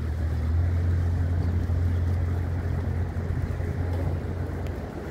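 Low, steady engine drone of a passenger tour boat passing close by, over a haze of wind and open-air noise. The drone fades after about four seconds.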